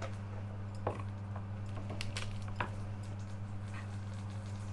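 Garlic cloves being crushed and handled with a kitchen knife on a wooden cutting board: a few light, scattered taps and knocks, over a steady low hum.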